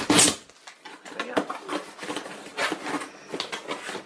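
A sealed cardboard box being opened by hand: a short sharp tearing noise at the start, then scattered taps, rustles and scrapes of cardboard being pulled open.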